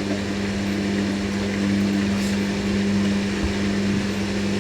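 Hoover NeXtra HNL3146 front-loading washing machine on its first intermediate spin, its drum motor running with a steady low hum.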